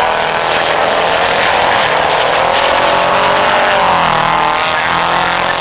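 Diesel racing trucks' engines running at speed on the circuit, with a thin high whine above them. The engine note dips about four seconds in and climbs again.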